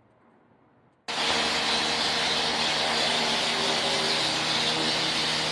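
Faint room tone, then about a second in a loud, steady mechanical running noise starts abruptly: a hiss over a low, even hum.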